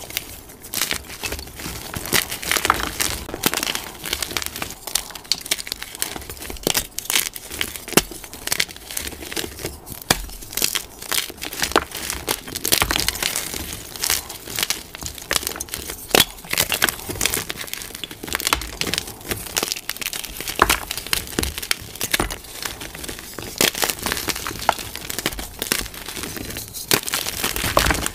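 Blocks of plain gym chalk crushed and crumbled by bare hands into loose powder: a dense, continuous run of dry crunches and crackles.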